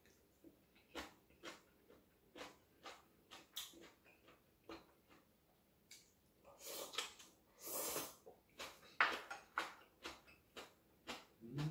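A person eating: short clicks and mouth smacks of chewing, about one or two a second, with a longer slurp from a rice bowl held to the mouth between about six and eight seconds in.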